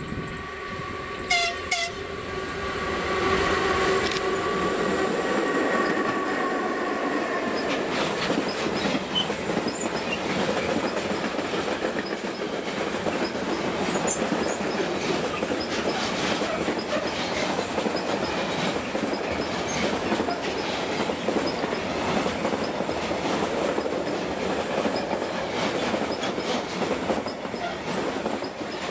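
Electric freight train passing close by. Its locomotive's horn is held for several seconds at the start and fades out, then a long rake of covered sliding-wall freight wagons rolls past with a steady rumble and clickety-clack of wheels over the rail joints.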